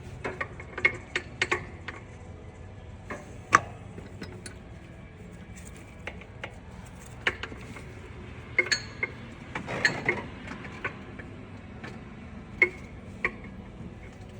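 Irregular metallic clinks and clicks of a wrench on the crankshaft bolt as a Chevy V8 is turned over by hand, to line the distributor up with the oil pump drive.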